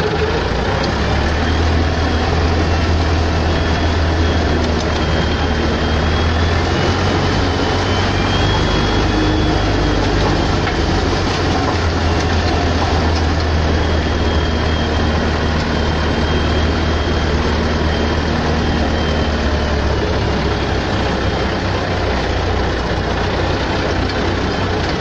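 Rakovica 76 tractor's diesel engine running steadily with a strong low drone as the tractor drives across a field, heard from inside the cab.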